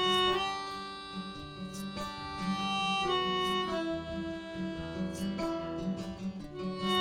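Instrumental passage of a folk-style song: guitar playing under a melody of long held notes that change about every second.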